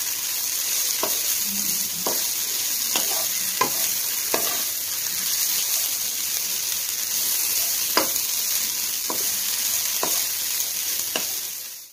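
Chicken and julienned vegetables sizzling steadily in a hot non-stick wok as a wooden spatula stirs them, knocking sharply against the pan about a dozen times at irregular intervals. The sizzle cuts off abruptly at the end.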